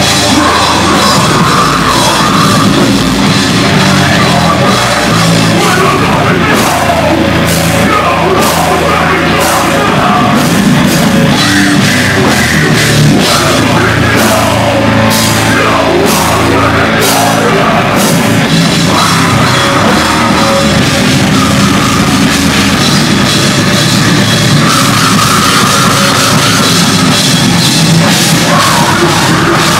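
Live deathcore band playing loud: distorted electric guitar over a full drum kit, with a run of regular cymbal hits through the middle stretch.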